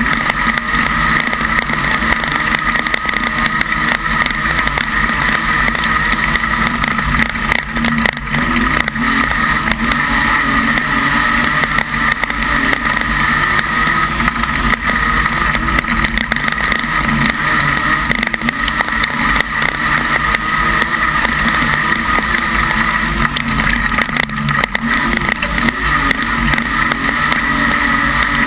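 Modified Production speedway car's engine running hard during a race, heard loud from inside the car, with a steady drone and many small rattling clicks throughout.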